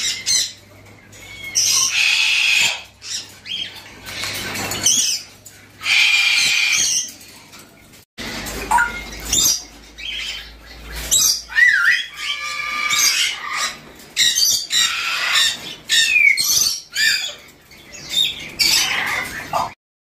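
Caged parrots, red lories among them, squawking: loud, harsh calls in bursts of about a second, one after another, some sliding in pitch.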